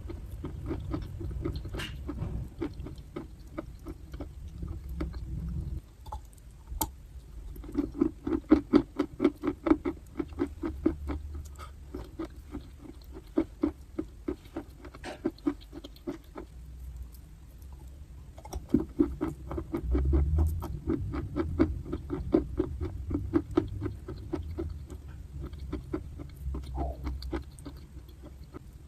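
Chalky clay being bitten and chewed close to the microphone: runs of rapid, crisp crunches, several a second, with brief pauses between bites.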